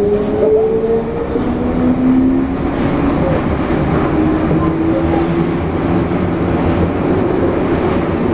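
Toei 5300 series subway train running, heard from inside the car: a rumble of wheels on track under the whine of the traction motors. The whine climbs, drops back about a second and a half in, climbs again and then settles as the train gathers speed.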